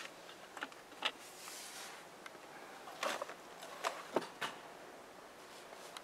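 Hands handling a car's rear cabin trim: scattered sharp clicks and light knocks, with a short rustle about a second and a half in and a cluster of clicks between three and four and a half seconds.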